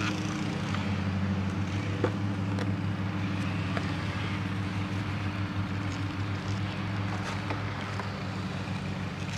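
Steady low hum of a distant motor running, with faint clicks and taps of a plastic motorcycle helmet shell being handled; one sharper click about two seconds in.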